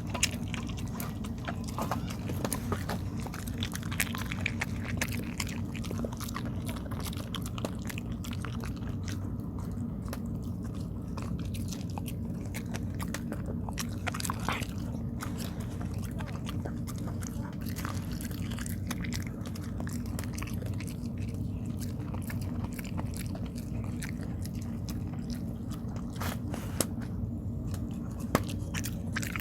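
A dog chewing tteok, sticky rice cake: a steady run of small wet clicks and smacks, over a constant low hum.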